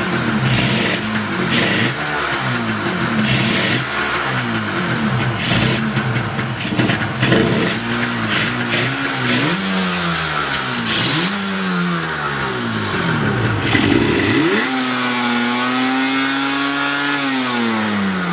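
Yamaha RZ250R two-stroke parallel-twin engine running, its throttle blipped up and down repeatedly, then held at higher revs for about three seconds near the end before dropping back.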